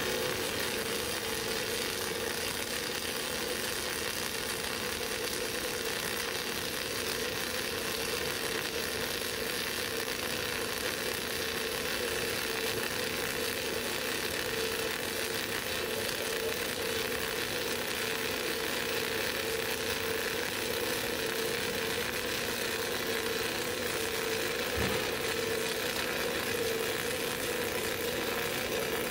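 Flux-cored arc welding with E71T-8 (NR-232) self-shielded wire on a horizontal fillet weld: the arc burns continuously, a steady hiss with a steady hum underneath. One brief low thump about 25 seconds in.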